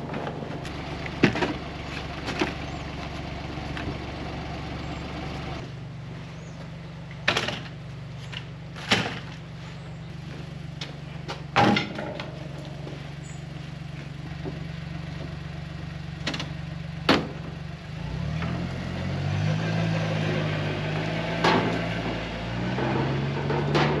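Side-by-side utility vehicle engine running at a steady idle, broken by several sharp metal clunks. About three-quarters of the way through, the engine note rises and wavers as the vehicle pulls away towing a loaded utility trailer.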